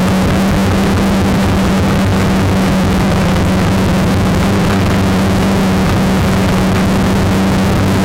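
Multirotor drone's motors and propellers running in hover, a steady loud hum with a constant pitch and a wash of propeller noise.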